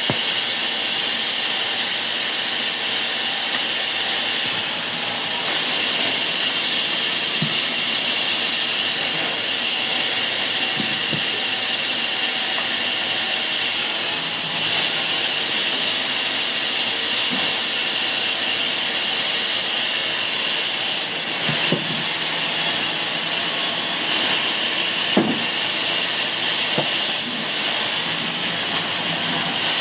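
Sawmill saw running steadily, a constant high-pitched hiss with a few faint knocks.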